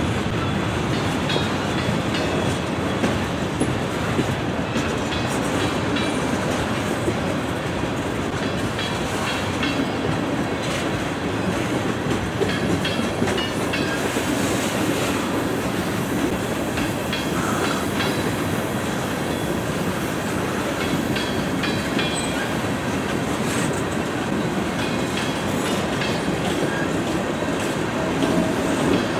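Freight train of tank cars rolling past: a steady rumble of steel wheels on rail, with the repeated clickety-clack of wheel sets over rail joints.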